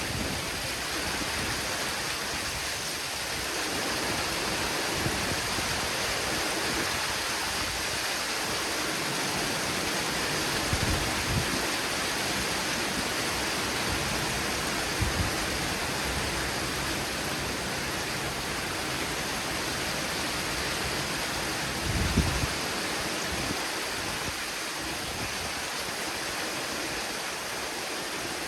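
Steady hiss of heavy thunderstorm rain, with a few brief low thumps about eleven, fifteen and twenty-two seconds in.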